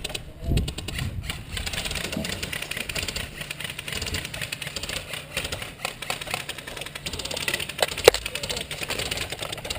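Airsoft electric guns firing on full auto: a fast, steady mechanical rattle, with a sharp single crack about eight seconds in.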